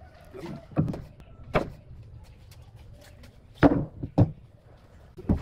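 Lengths of timber knocked and set down on a wooden work table: a series of separate wooden knocks, the loudest two coming close together a little past halfway and another near the end.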